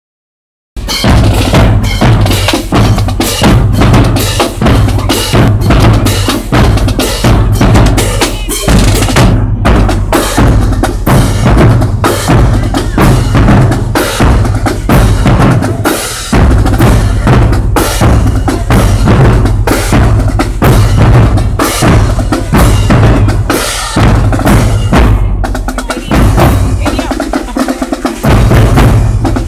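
Marching band drumline playing loudly while marching: bass drums and snare drums beating a fast, steady rhythm. It starts about a second in, and the bass drums drop out briefly near the end.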